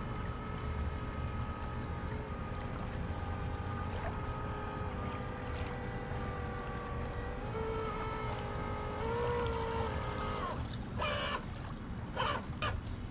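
A motor runs with a steady whine over a low rumble. Its pitch rises slightly about nine seconds in, and it cuts off about ten and a half seconds in.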